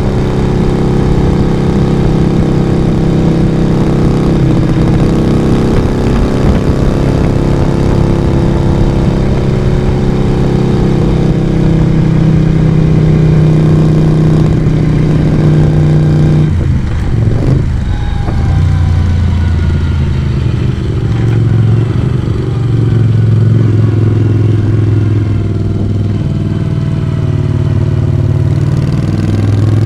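Moto Guzzi V35's air-cooled V-twin running under steady throttle while riding. About halfway through the revs drop sharply as the throttle eases off, then fall slowly, and they pick up again near the end.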